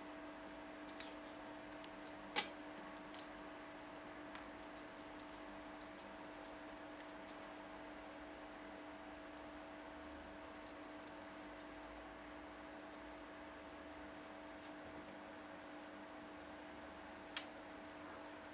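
Feather wand cat toy being flicked and batted by a kitten: faint, quick high-pitched rustling and jingling in short bursts, busiest about five and eleven seconds in, over a steady low hum.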